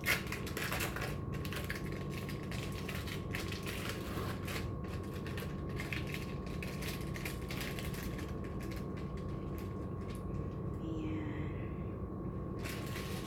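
Irregular rapid clicks and crackles of hands handling food and kitchen materials while preparing stuffed chicken breast, over a steady faint electrical hum.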